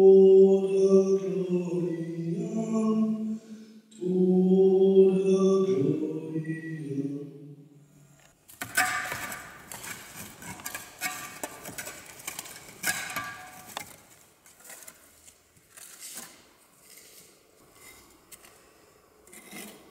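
A single voice singing a slow chant in long held notes, in two phrases. About eight seconds in it stops and gives way to the scraping and rustling of soil being worked by hand and with a small tool, loudest at first and then fainter.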